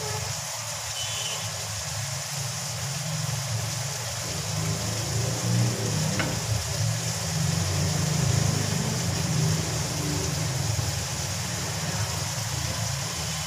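Chicken and vegetables frying in a wok while being stirred with a slotted spatula, over a steady low hum from the stove or a kitchen fan.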